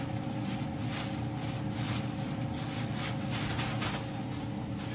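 Steady mechanical hum with a constant tone, under a rushing hiss that swells and fades irregularly.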